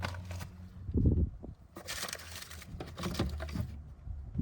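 Rustling and a few knocks and clicks as loose items are taken out of a pickup truck's glove compartment, with one louder knock about a second in, over a low steady hum.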